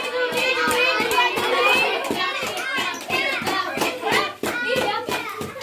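Children's voices shouting and cheering over one another, with scattered handclaps.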